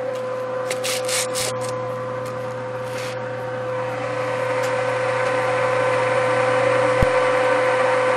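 A steady machine hum with a constant whine, growing a little louder after about four seconds. A few short hissing rushes come in the first three seconds, and there is a single sharp knock near the end.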